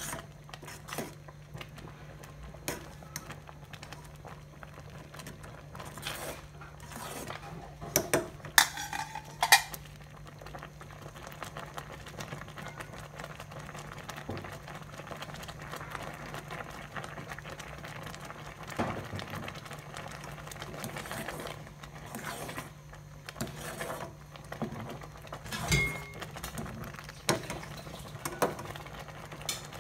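Metal ladle stirring a boiling pot of rice porridge, clinking and knocking against the sides of the aluminium pot over the bubbling. The sharpest knocks come in a cluster about eight to nine seconds in and again near the end. A steady low hum runs underneath.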